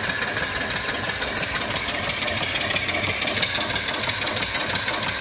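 Single-cylinder mill steam engine, 2¾-inch bore and 4-inch stroke, running steadily under steam: a rapid, even beat of exhaust chuffs over a steady hiss of exhaust steam.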